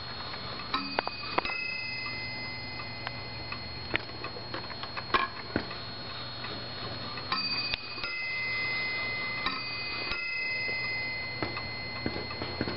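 Warmink cabinet clock striking in two-note pairs, once about a second in and twice more in the second half, each note ringing on, over the movement's ticking.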